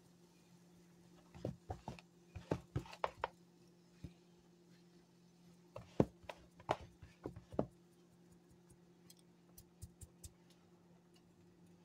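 A pepper container clicking and tapping as black pepper is added over a bowl of potato salad, in two short bursts of irregular clicks a few seconds apart, then a few fainter ticks near the end. A faint steady hum sits underneath.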